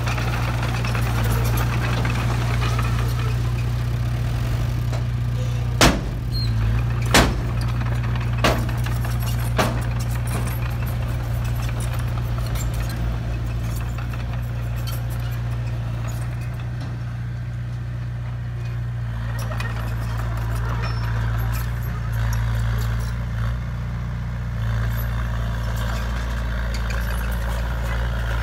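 Heavy diesel engines of a dump truck and earthmoving machinery running steadily. Four sharp bangs come between about six and ten seconds in.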